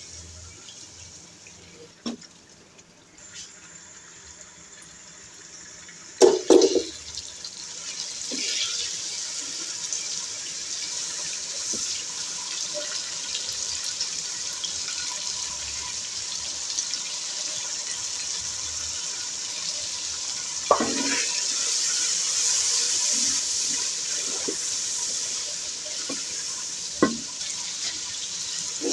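Beef and onions sizzling and frying in oil and juices in a cooking pot: a steady hiss that grows louder after a loud burst about six seconds in. A couple of sharp knocks, typical of a utensil against the pot, come later.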